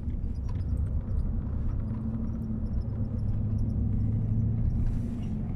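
Engine and road rumble heard inside the cab of a vehicle driving at highway speed: a steady low drone with a faint engine hum, a little stronger in the middle.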